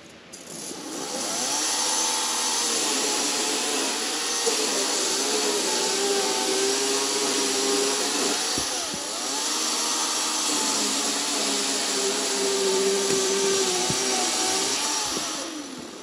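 A power saw cutting through a log. The motor spins up over the first second or two, runs with its pitch sagging and recovering under load about halfway through, then winds down and stops near the end.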